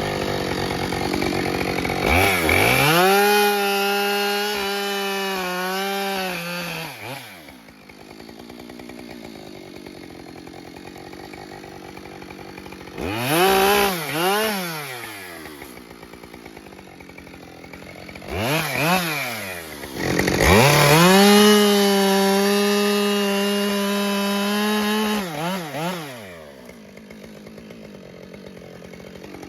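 Husqvarna 572XP two-stroke chainsaw bucking ash logs: two long full-throttle cuts, its pitch dipping and wavering under load, with idling and two short revs in between. It revs up again right at the end.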